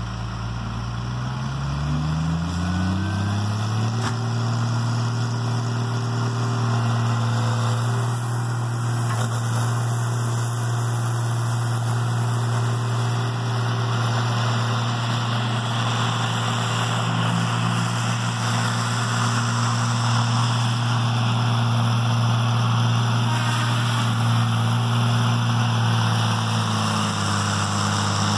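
Tigercat 720E feller buncher's diesel engine revving up over the first few seconds, then running steadily at high speed under a hiss, with the pitch shifting about a second before the end.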